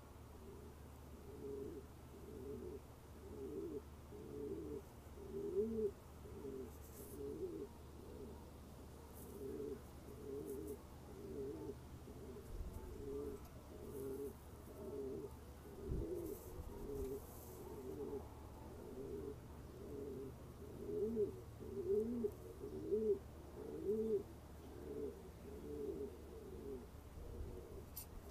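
Domestic pigeons cooing, a low rolling coo repeated about once a second.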